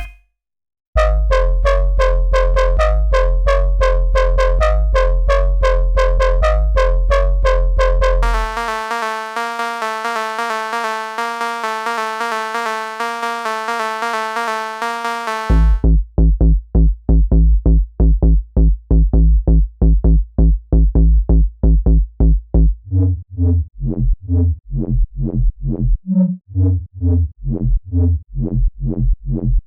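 Electronic UK garage-style synth preset demos from the Serum 2 synthesizer. After a gap of about a second, a bass preset plays over a drum-machine beat with deep sub bass. About eight seconds in the bass drops out for a held synth chord, and about fifteen seconds in a new bass preset pulses rapidly, turning into a stepping pitched bassline about halfway through the rest.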